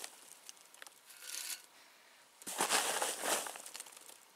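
Handfuls of dry beech wood chips poured into the top of a steel-pipe smoke generator, rustling and rattling down the pipe in bursts. There is a short burst about a second in and a longer one from about two and a half to three and a half seconds in.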